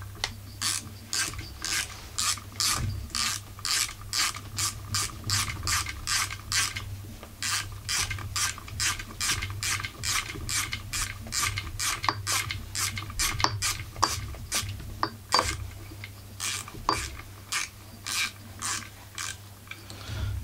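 Ratcheting bit screwdriver clicking in a steady run of strokes, about two clicks a second with a few short pauses, as it turns the ignition coil's mounting screws on a chainsaw.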